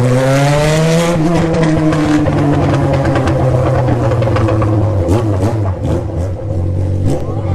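Yamaha FZ6's 600 cc inline-four engine revved up and held high. The revs slowly sink, with a few quick blips around the middle, then drop back to a steady idle near the end.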